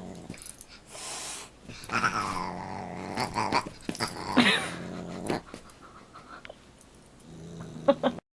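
Pet animals growling and crying out, with two loud cries that slide down in pitch about two and four seconds in.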